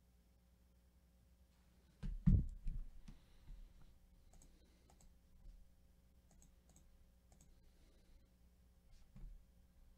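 Light clicking of a computer mouse and keys, with a louder cluster of knocks on the desk about two seconds in and a soft knock near the end.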